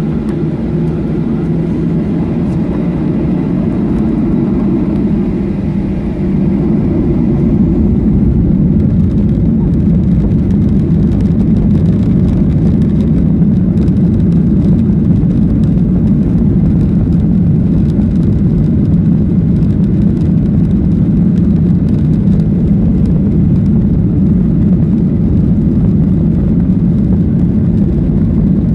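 Cabin noise of a Boeing 737 airliner: a loud, steady drone of the jet engines and airflow heard from inside the cabin, growing louder about six seconds in.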